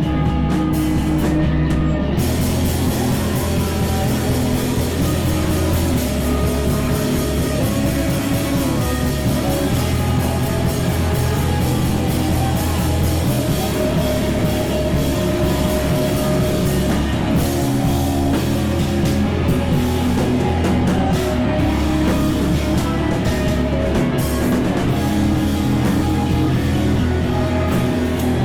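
Live rock band playing: guitar, bass and drum kit. The cymbals come in about two seconds in, and the band plays on steadily after that.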